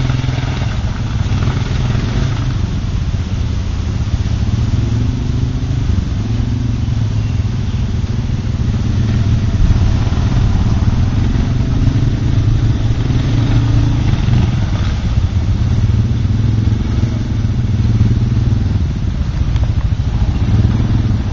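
Suzuki KingQuad ATV engines running at low revs while crawling through mud, the note rising and falling a little.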